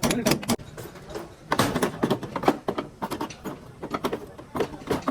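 Irregular clatter of sharp knocks and scrapes, several a second, uneven in strength.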